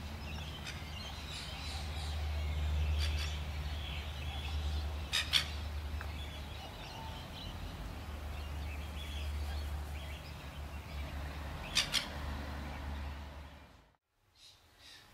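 Masked lapwings (spurwing plovers) giving a few short, harsh calls, scattered and some in quick pairs, over a steady low rumble.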